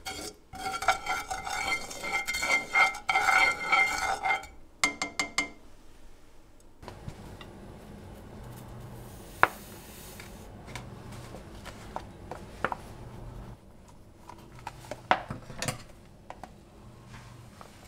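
A wooden chopstick stirs and scrapes around a nonstick frying pan of used cooking oil, dissolving an oil-solidifying powder, with quick rhythmic scrapes and a ringing pan for the first five seconds. Then comes quieter handling of a plastic mayonnaise bottle, with a few sharp clicks.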